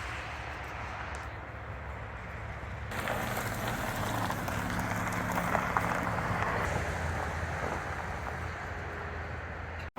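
Steady outdoor background noise with a low, even hum, somewhat louder after about three seconds.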